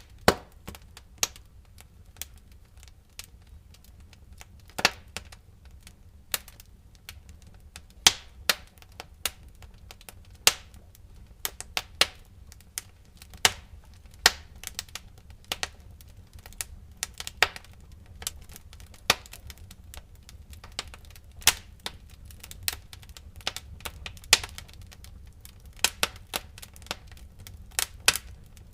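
Wood fire crackling in a fireplace: irregular sharp pops and snaps, sometimes several in quick succession, over a faint low rumble.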